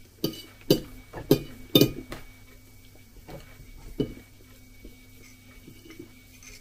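Metal fork clinking and scraping against a ceramic plate: four sharp clinks in the first two seconds, then a few fainter ones.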